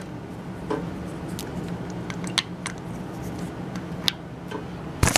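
Small plastic clicks and taps as a cord's connector is handled and pushed onto the pins of a drain valve's solenoid, with a louder click near the end as it seats. A steady low hum runs beneath.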